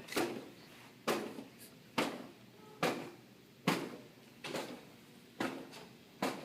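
Homemade air vortex cannon being fired by repeated taps on its back: a sharp thump about once a second, each trailing off in a short ring, seven or eight in all.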